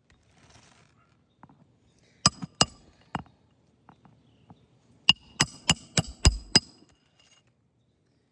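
Hammer blows striking metal: three blows, then after a pause a quicker run of six, each with a short metallic ring.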